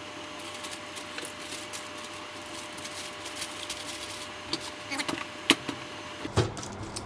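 Baking paper rustling and crinkling as it is folded by hand over a piadina on a contact grill, then the Moulinex Express Grill's lid is lowered shut with a couple of knocks near the end.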